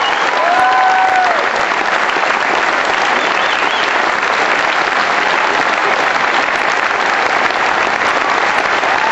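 A large theatre audience clapping steadily in a dense, unbroken round of applause.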